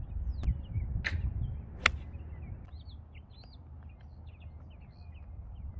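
Small birds chirping over a steady rumble of wind on the microphone, with a single sharp click about two seconds in.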